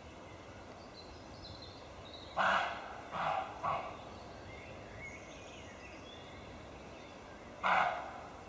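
Roe deer barking: three short, harsh barks in quick succession, then a fourth about four seconds later, the alarm call of a disturbed roe deer.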